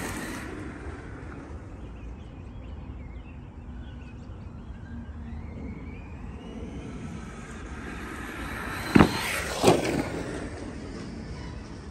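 ARRMA Mojave 4S RC short course truck's electric motor whining as it drives, rising in pitch now and then. About nine seconds in come two sharp thumps, under a second apart.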